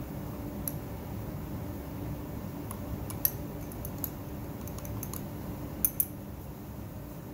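Metal spatula tapping and scraping against the inside of a small glass beaker while chunks of trimyristin crystals are chopped up: a handful of sharp light clicks, the loudest about three seconds in and a quick pair near six seconds, over a steady low hum.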